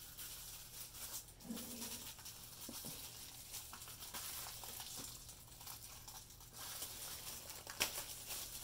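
Plastic packaging crinkling and rustling in the hands as a well-wrapped console is unwrapped, with a sharp click near the end.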